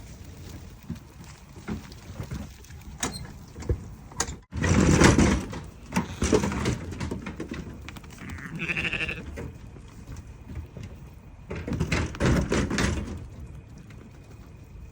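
Lambs bleating, one clear bleat about eight and a half seconds in, among louder noisy bursts about five seconds in and again near twelve seconds.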